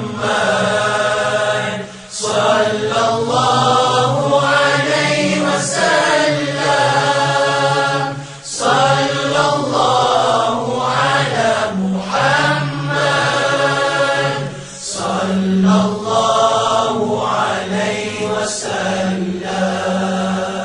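Arabic salawat chanting in praise of the Prophet Muhammad: slow, drawn-out melodic phrases with a steady low drone beneath. The phrases break off briefly about every six seconds.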